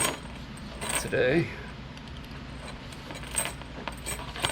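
Metal tailgate chain links clinking and jingling in a few short, separate clicks as the chain is handled and pulled.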